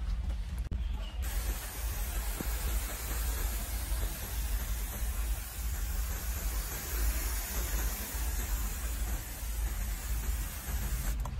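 Hand-pump garden pressure sprayer spraying a fine jet of water onto bare roots and soil: a steady hiss that starts about a second in and cuts off near the end.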